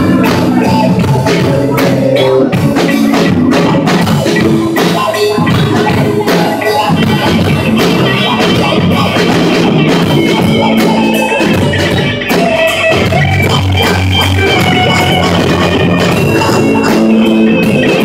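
Live rock band jamming loud on electric guitars over a drum kit, with steady drum hits under sustained guitar notes.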